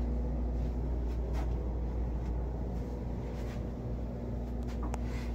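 Steady low hum of a yacht's onboard machinery, with a few faint clicks.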